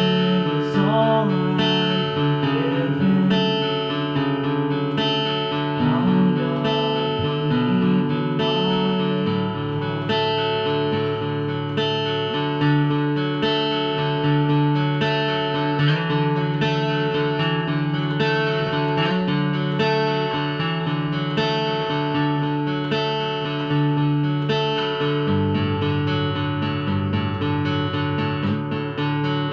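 Acoustic guitar being played, chords struck in a steady, even rhythm.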